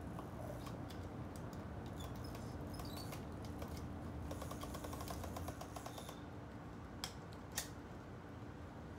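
Small wood fire crackling, with many fine clicks and two sharper pops near the end. A few faint chirps and a steady low hum sit underneath.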